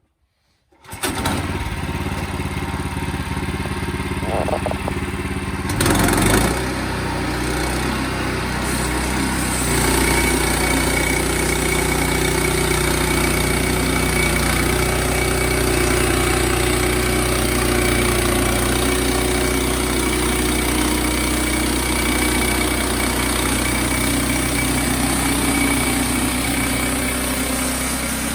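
Sawmill engine starting up about a second in and running steadily, briefly louder around six seconds and picking up to a higher, steady speed from about ten seconds.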